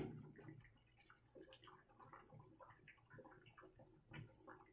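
Faint, irregular bubbling and popping of water at a boil in a metal pot on a gas burner, opening with a short knock.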